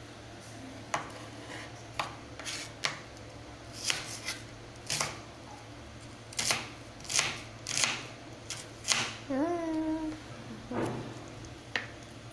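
Kitchen knife slicing a red onion on a cutting board: about a dozen uneven, sharp knocks of the blade against the board.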